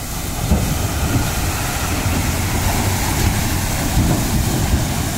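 Tata multi-axle tipper truck's diesel engine pulling under load through deep mud, growing louder about half a second in as it comes close, with its tyres churning wet mud.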